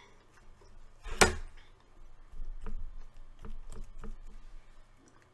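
Crusty garlic bread being torn apart by hand over a plate of food, with one sharp knock about a second in and several softer clicks and crackles after it.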